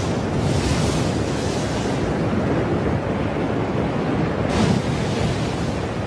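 Muddy flood or debris flow churning down a slope: a loud, steady rush of water and mud with a deep rumble under it, swelling into a brighter hiss just after the start and again about four and a half seconds in.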